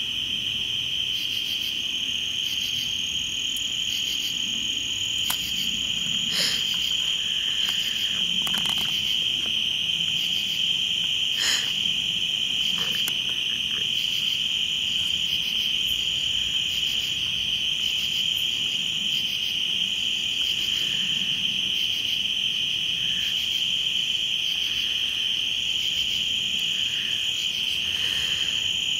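Night insect chorus: a dense, steady high-pitched trill that never lets up, with a few faint clicks now and then.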